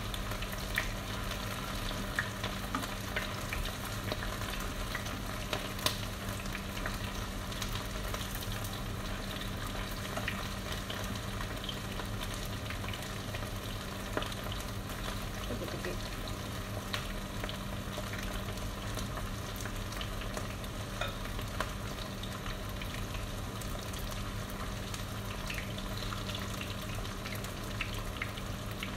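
Marinated goat meat frying in hot oil in a pan: a steady sizzle with scattered crackles and pops.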